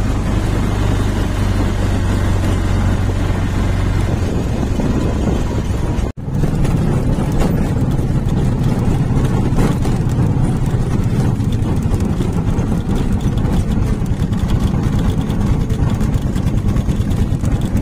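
Auto-rickshaw engine running as the vehicle drives along, with a low rumble of wind on the microphone for the first few seconds. There is a brief dropout about six seconds in, after which the engine runs on steadily.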